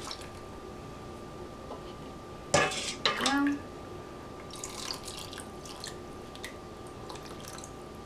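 Pickle brine being ladled from a stainless steel bowl and poured through a plastic canning funnel into a glass jar of cucumbers: a sharp clunk of the metal ladle about two and a half seconds in, a few more knocks, then liquid splashing and dripping into the jar. A faint steady high hum runs underneath.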